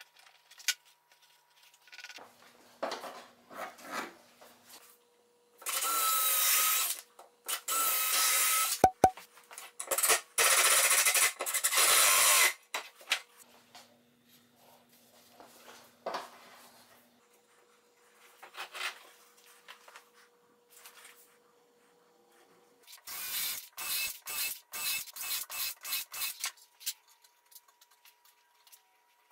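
Workshop tool sounds: a few handling knocks, then a power drill running in three bursts of one to two seconds each, and near the end a quick run of repeated rasping strokes.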